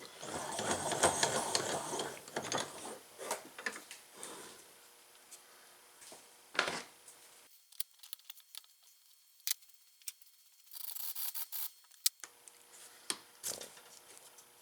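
Scraping and rubbing as a part is worked into a bench vise and clamped, followed by scattered clicks and knocks of handling and tools, and a short hissing burst about eleven seconds in.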